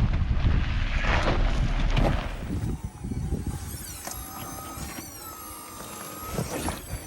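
Jeep Wrangler Rubicon 4xe moving over a trail, with wind buffeting the microphone and a loud rumble; about two seconds in it turns quieter, and a high whine of shifting pitch runs over a low rumble.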